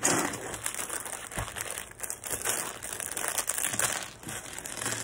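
Thin plastic Lego parts bag crinkling as hands rummage through it, a continuous run of small crackles.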